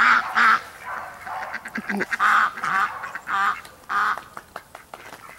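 A flock of Indian Runner ducks quacking loudly, in short calls that come mostly in pairs, about six in all.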